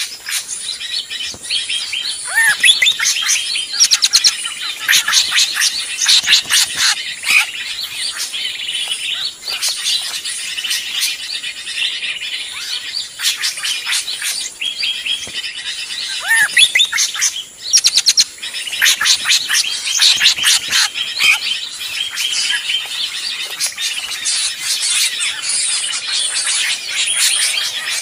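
Bird-lure (pikat) recording of drongos calling noisily: dense, overlapping chirps and sharp notes that go on without a break, with a rising whistled note a couple of seconds in and another past the middle.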